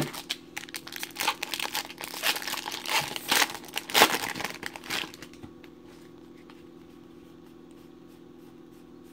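Foil wrapper of a baseball card pack crinkling as it is handled and torn open, loudest with a sharp tear about four seconds in. After that there is only a low steady hum.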